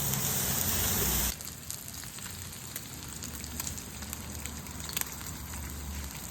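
Food sizzling and crackling on a Blackstone flat-top griddle: a steady hiss with scattered small pops, dropping much quieter just over a second in.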